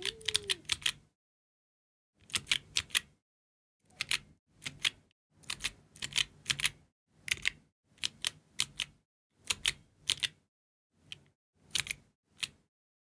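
Georgi stenographic keyboard being typed on in chords: quick clusters of key clicks come in irregular bursts about every half second to second, with short silent pauses between them.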